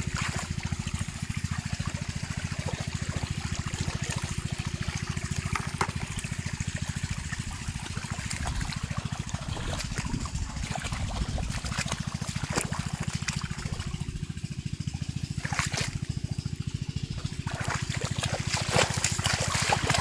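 Shallow floodwater splashing and trickling as a barefoot child wades through it and grabs at fish by hand, with a few sharper splashes scattered through. A steady low rumble runs underneath.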